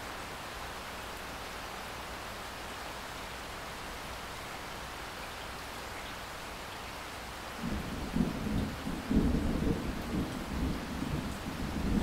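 Heavy rain splashing onto a flat surface with standing water, a steady hiss. About eight seconds in, a low rumble of thunder sets in and rolls on, swelling and fading.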